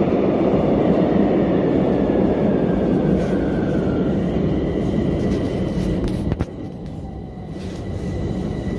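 Metro train running, heard from inside the carriage: a steady rumble with a faint motor whine that slowly falls in pitch. The rumble drops noticeably about two-thirds of the way through.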